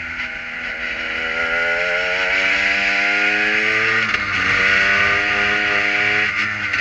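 Kohler-powered prototype race car's engine heard from the cockpit, revving up under hard acceleration in first gear. Its pitch drops at an upshift to second about four seconds in, climbs again, then falls off near the end. A steady wind hiss runs under it.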